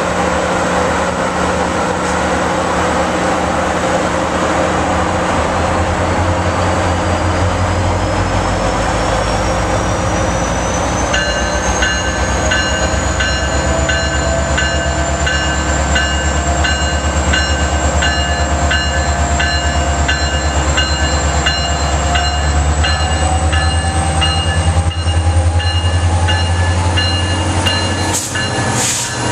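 Metrolink diesel passenger locomotive running under power as the train moves through the station: a steady low engine drone with a whine that rises slowly in pitch. From about 11 seconds in, a bell rings in a steady rhythm over it.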